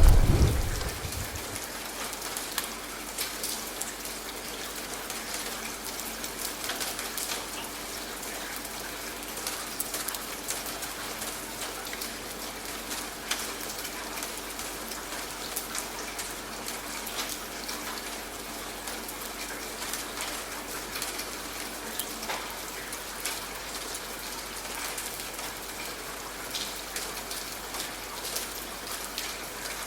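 Steady rain falling, an even hiss dotted with the patter of drops. The tail of a loud rumble, like thunder, dies away in the first second.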